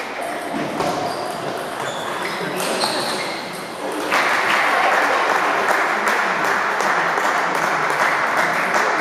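Table tennis balls clicking on tables and bats in a sports hall, over a steady din of the hall that grows louder about four seconds in.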